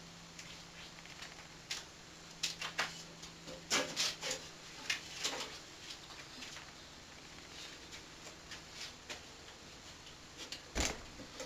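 Scattered clicks and knocks of things being handled, with a faint steady hum that stops at a sharper, louder knock near the end.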